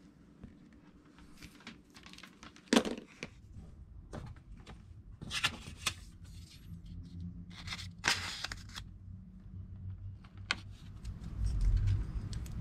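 Alligator-clip test leads and wires being handled and clipped together: separate sharp clicks and short scraping rustles, the loudest about three seconds in, over a low hum that builds from about four seconds in.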